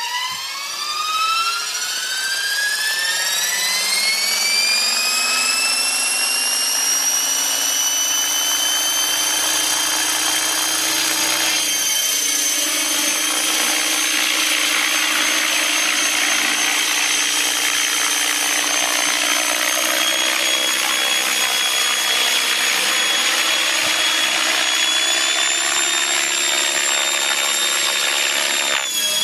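Radio-controlled model helicopter spooling up on the ground, its high whine rising in pitch over the first few seconds, then holding a steady whine with rotor buzz as it flies. The pitch steps up slightly near the end.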